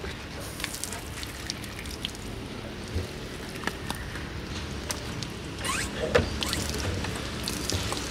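Scattered metal clicks and knocks from a car trailer's tow-hitch coupling being handled, with a short rising squeak and a sharper knock about six seconds in, over a steady outdoor background noise.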